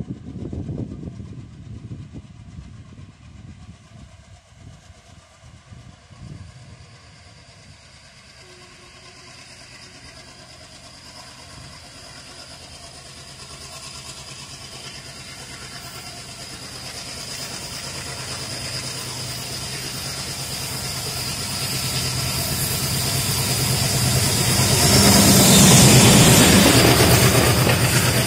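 WDP-3A diesel locomotive approaching and passing at speed. The engine grows steadily louder, with a steady high whine over it, until it passes close by near the end. Then the coaches roll past with wheel noise.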